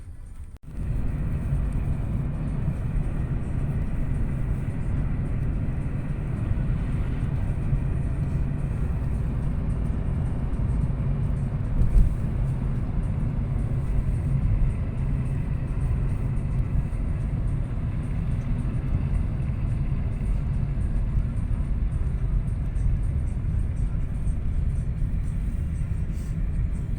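Steady low rumble of a car driving. It starts abruptly just under a second in and has one brief knock about halfway.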